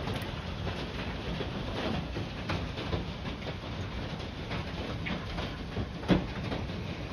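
Hail and heavy rain pelting down: a dense, steady rush peppered with irregular sharp hailstone knocks, with one louder knock about six seconds in.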